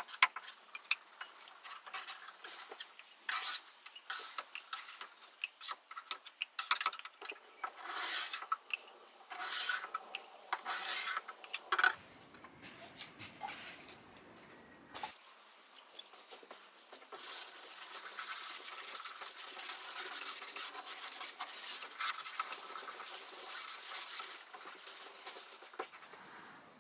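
A metal scraper scraping softened, stripped finish off a wooden tabletop in short strokes, with sharp clinks as the blade is wiped on the rim of a plastic tub. Midway, purple solvent is poured onto the wood, and after that comes a steady scrubbing as the surface is rubbed down by hand, which stops just before the end.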